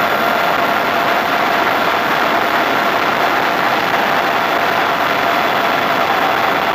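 A radio-controlled A-10 model plane's motors running at a steady high throttle in flight, a constant whine with overtones, over a loud rush of wind across the onboard camera.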